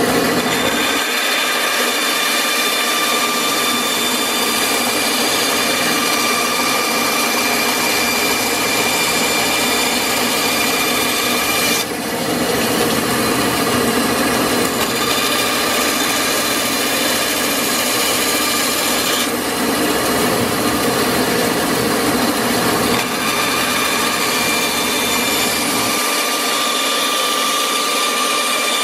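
Bandsaw running steadily and cutting a thin strip of wood, a constant motor and blade whine with the rasp of the blade through the wood.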